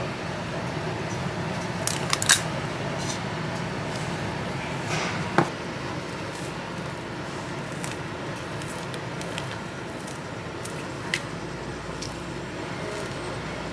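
Steady background hum of a small shop counter with a few sharp clicks and taps of a metal scoop and utensils: a quick cluster about two seconds in, another single click a few seconds later and a fainter one near the end.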